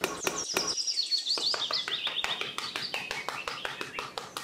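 A small bird chirping fast, each chirp a short high note falling in pitch, over a quick run of sharp clicks.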